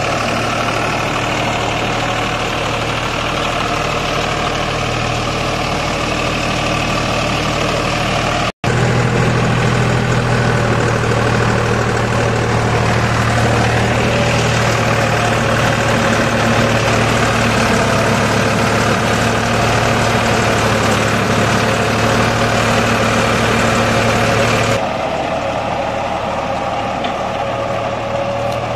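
Deutz-Fahr Agrolux 50 tractor's diesel engine running steadily under load as it pulls a rotavator tilling hard soil. There is a split-second dropout about a third of the way in, after which the engine is louder with a stronger low hum, heard from on the tractor; near the end it drops back to a lower level.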